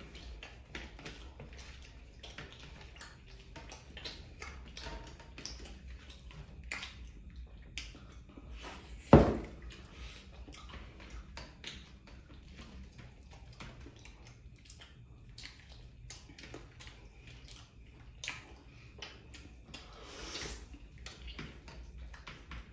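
Close eating sounds of two people eating chicken chaap and paratha by hand: small wet smacks and clicks of chewing, tearing flatbread and fingers on metal platters. One sharp, loud thump stands out about nine seconds in.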